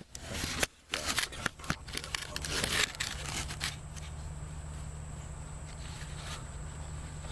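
Handling noises: a quick run of small clicks and rustles for about the first three and a half seconds, then only a steady low hum.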